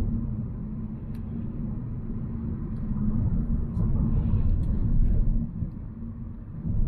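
Volvo C70 driving: a steady low rumble of engine and road noise that swells a little around the middle and eases toward the end, with a few faint clicks.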